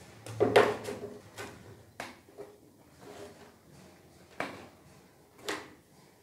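Orange PVC drain pipe and a tee fitting knocking and scraping against each other as they are pushed together by hand on a concrete floor. The loudest clatter comes about half a second in, followed by three single knocks spread through the rest.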